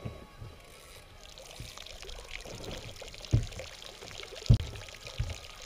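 A steady pouring trickle of a man urinating over the side of the boat into the lake, starting about a second in, with a few dull thumps on the boat.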